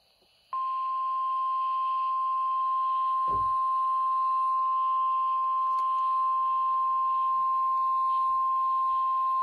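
NOAA Weather Radio warning alarm: a single steady 1050 Hz tone that starts about half a second in and holds for about nine seconds, sounding for the required weekly test of the alarm. A brief low thump about three seconds in.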